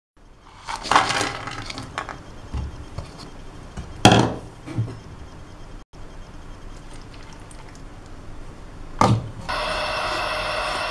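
Chopped dried jujube pieces clatter as they are tipped into a nonstick frying pan, followed by a couple of sharp knocks against the pan. From about nine and a half seconds in, a steady sizzle sets in as the jujubes cook in water in the hot pan.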